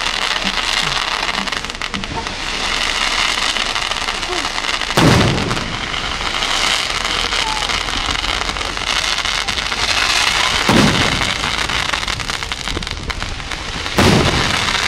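Fireworks display: a steady dense crackle of burning stars and sparks, broken three times by loud aerial shell bursts, about five, eleven and fourteen seconds in.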